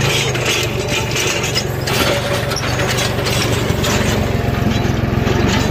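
Deutz-Fahr tractor's diesel engine running steadily under load while pulling a disc plough through hard soil, with rattling and clanking from the plough frame and hitch linkage.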